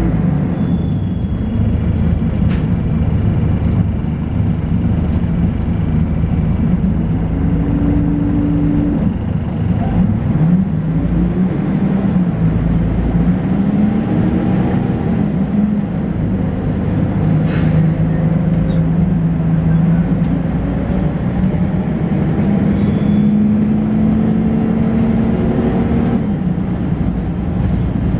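Volvo B10BLE bus's six-cylinder diesel engine running steadily under way, its note rising and falling a few times through the middle stretch as the ZF automatic gearbox changes gear.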